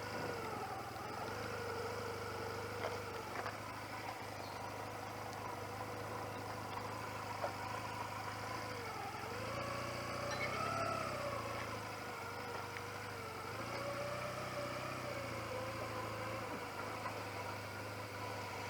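Motorcycle engine running at low speed, its note dipping and then rising about halfway through before settling again.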